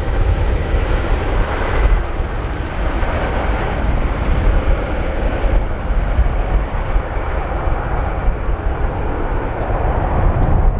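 Airbus A320 jet engines on departure, a steady roar with no distinct tones, under a heavy, fluctuating low rumble of wind buffeting the microphone.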